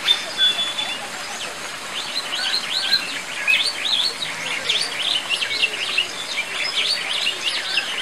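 Birds chirping: a short thin whistled note right at the start, then from about two seconds in a fast, dense run of high chirps.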